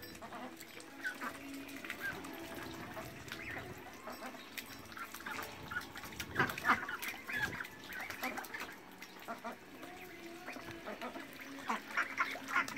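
A flock of domestic ducks quacking in short, repeated calls, busiest about halfway through and again near the end.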